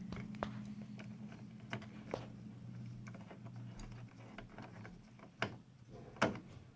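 Scattered light clicks and taps of small computer hardware being handled and fitted, with two louder clicks near the end, over a steady low hum.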